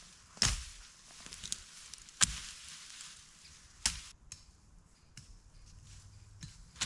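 Three sharp knocks, one every second and a half to two seconds, with lighter clicks and rustles between.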